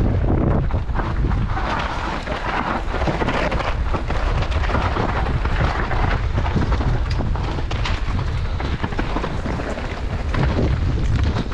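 Mountain bike riding down a rough trail: wind buffeting the camera microphone in a constant low rumble, with irregular rattling and tyre noise over it.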